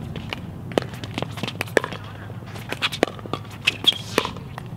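Pickleball paddles hitting a hard plastic pickleball in a rally at the net, a series of sharp pops, some close together, with a light scuff of court shoes.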